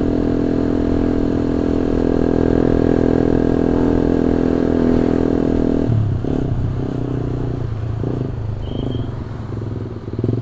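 Honda CB150R's single-cylinder engine through an aftermarket SC Project titanium racing exhaust, heard from the rider's seat: a steady cruising note for about six seconds, then a drop to a lower, uneven, pulsing note as the throttle is rolled off.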